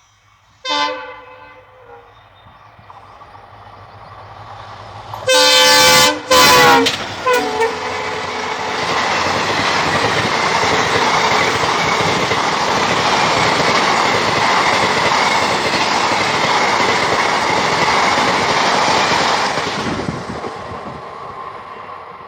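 Express train's horn gives a short blast, then a loud long blast in two parts about five seconds in and a brief toot after it, as the train passes at speed. The rumble and clatter of the coaches going by follows for about a dozen seconds, fading near the end.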